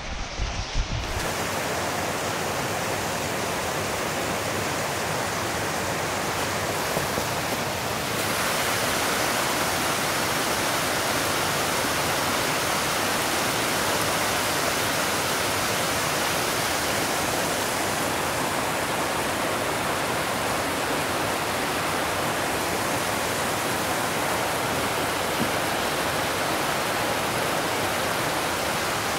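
Steady rush of water from a small cascading creek, a shallow stream tumbling over mossy rocks.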